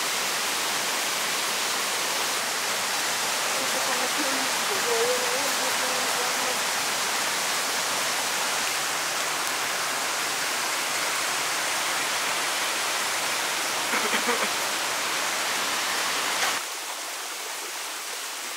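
Steady rushing of flowing water, an even hiss with no distinct events. It drops in level and thins suddenly about two seconds before the end.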